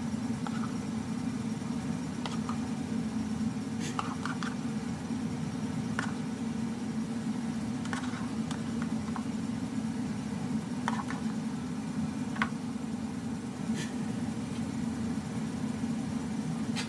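Steady low mechanical hum, with scattered light clicks and taps.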